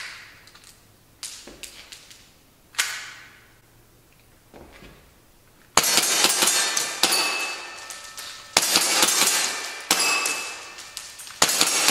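Tokyo Marui S&W M&P9 gas blowback airsoft pistol firing: a few scattered sharp cracks, then from about six seconds in, fast strings of shots, each shot a sharp pop with the clack of the slide, mixed with metallic pings from hits on the target plates.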